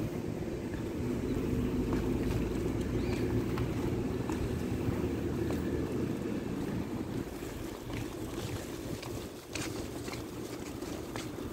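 Steady low outdoor rumble of wind on a phone microphone mixed with street noise, with a few faint ticks near the end.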